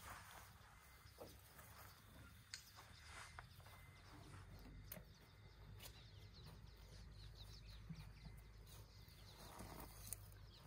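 Near silence: faint outdoor ambience with a low steady hum and a few faint, sharp clicks.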